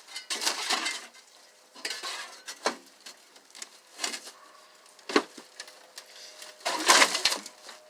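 Sheet-metal clattering and scraping in several separate bursts, the loudest near the end, as the outer metal casing of an old microwave is pried and pulled off.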